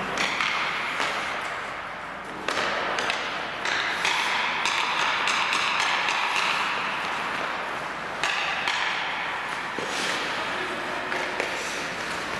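Ice hockey skate blades scraping and hissing on the ice in swelling strokes, some starting abruptly, with scattered clicks and taps of sticks and puck.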